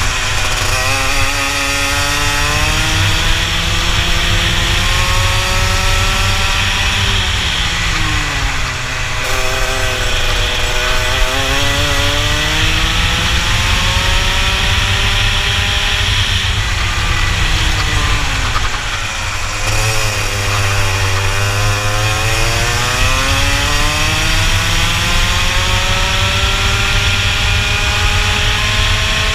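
Rotax 125 cc two-stroke kart engine at racing speed, heard from on board. Its pitch climbs in long sweeps as it accelerates, and twice it falls away sharply as the revs drop for corners, before climbing again.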